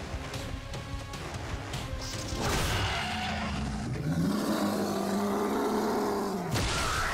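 Dramatic score under a huge ape's heavy running thuds, then a loud hit. A deep, drawn-out monster roar starts about four seconds in, rises and holds, then cuts off sharply near the end.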